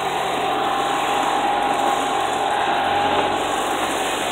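Golf cart driving along: a steady running noise with a faint, constant whine.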